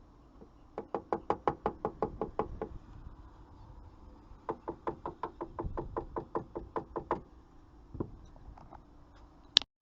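Back of a screwdriver handle tapping rapidly on a Nissan tail light assembly to knock it loose from the body, in two runs of quick taps about seven a second, then a single tap and a sharp click near the end.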